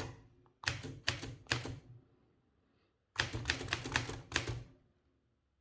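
Olivetti M20 manual typewriter keys striking the platen in two short runs, about four strokes and then about five after a pause of over a second.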